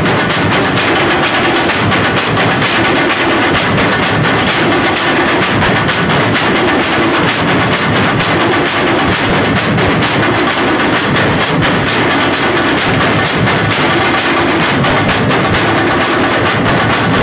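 A group of drummers beating large stick-played barrel drums and smaller hand-held drums in a fast, loud, unbroken rhythm, with cymbals clashing over the top.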